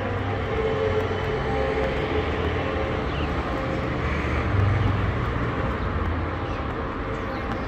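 Street traffic: a steady rumble of passing vehicles, their engines and tyres, with a few faint engine tones through it.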